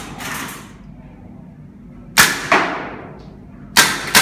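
VFC Mk18 Mod1 gas-blowback airsoft rifle firing: two quick pairs of sharp cracks about a second and a half apart, each crack with a short echo.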